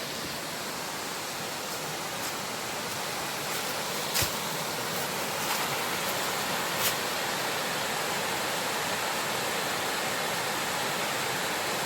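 Steady rushing of falling water from a waterfall, a little louder as it goes on, with a few faint clicks about four and seven seconds in.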